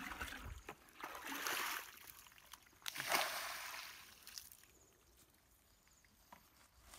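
Muddy water sloshing and pouring as a plastic bucket scoops it from a flooded tractor rut and tips it out, bailing the rut: one splash about a second in and a louder one around three seconds in.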